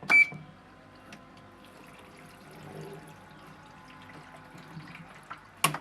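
A washing machine control-panel beep at the start, then faint water running in the machine, with a sharp click near the end.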